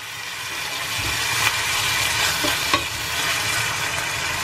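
Sardines, carrots and broccoli in sauce sizzling in a stainless steel pan while a wooden spatula stirs them, with a couple of light spatula knocks against the pan near the middle.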